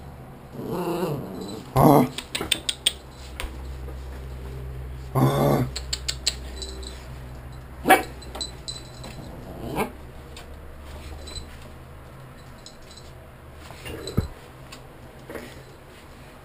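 Small dog growling and giving short barks in several bursts a few seconds apart, the loudest about five seconds in, as it play-fights on command with sharp clicks in between.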